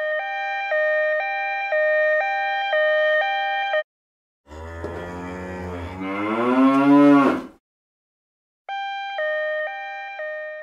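Hi-lo two-tone ambulance siren sound effect, alternating between two notes about twice a second. It stops, and a cow gives one long moo that rises in pitch toward its end. The siren starts again near the end.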